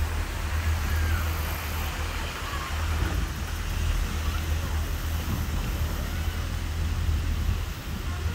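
Steady outdoor background noise: a low rumble under an even hiss, with faint far-off voices now and then.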